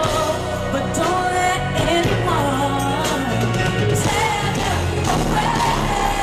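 Female pop vocalist singing live over a band with steady bass. Her voice glides up and down through runs, then holds a long note near the end.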